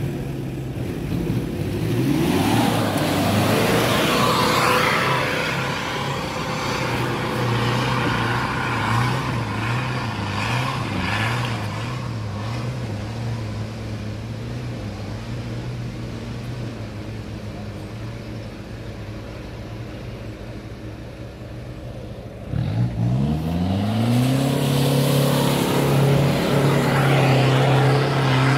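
Four-wheel-drive pickup engines revving as they climb a dirt trail. One revs up a second or two in and settles to a steady pull that slowly fades. A second engine revs up sharply about 22 seconds in and keeps pulling hard.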